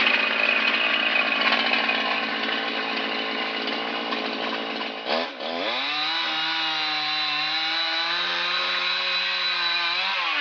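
Chainsaw running at speed while cutting a tree branch. About five seconds in the sound dips briefly and the pitch drops, then it runs at a steady lower pitch.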